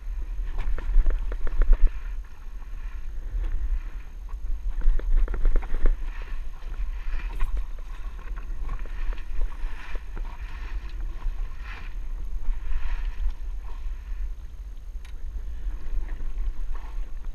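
Waves slapping irregularly against the hull of a jet ski on open water, over a constant low rumble of wind on the microphone.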